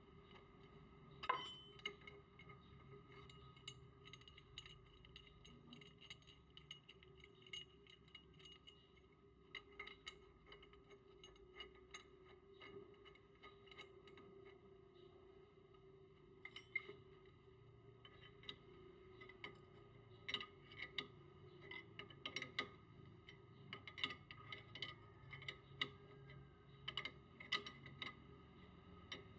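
Faint, irregular metallic clicks and taps of hand tools working on a disc brake caliper, with one louder knock about a second in and quicker runs of clicks in the second half. This is the caliper piston being pressed back with a piston press tool to make room for new brake pads.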